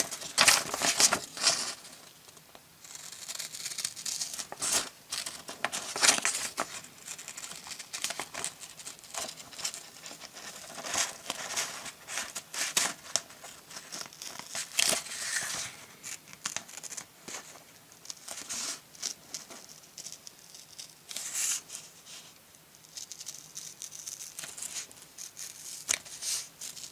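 Scissors snipping through a sheet of printer paper in short, irregular runs of cuts, following a curved outline, with the paper crinkling as it is turned between cuts.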